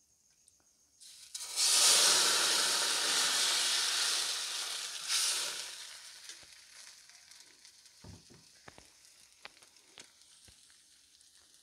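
Rice-flour and egg batter poured into a hot oiled aluminium frying pan, sizzling. The sizzle starts suddenly about a second in, holds loud for a few seconds, then dies down gradually, with a few faint knocks near the end.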